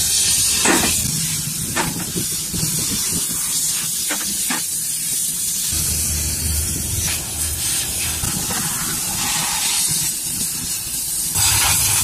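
A steady hiss over a low rumble, broken by a few sharp knocks in the first five seconds.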